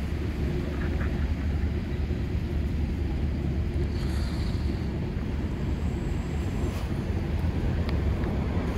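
A steady low outdoor rumble, with a few faint clicks.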